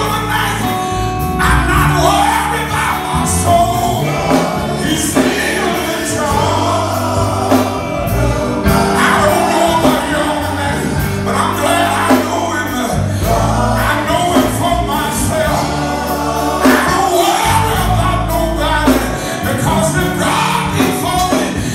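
Male gospel quartet singing live through microphones, a lead voice over the group's harmonies, backed by electric bass guitar and band.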